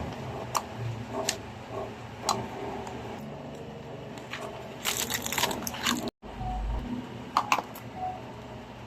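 Small plastic items being handled: scattered sharp clicks, with a burst of crinkling and crackling about five seconds in and a couple more clicks near the end.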